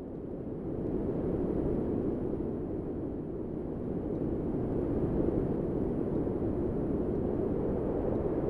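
Wind sound effect: a steady, low blowing of wind that fades in over the first second and then holds even.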